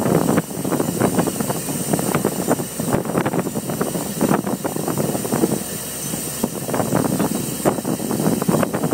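A fishing boat's engine running under a steady hiss of wind and sea, with an uneven rushing and rustling as the squid net comes off the net drum and runs out over the side.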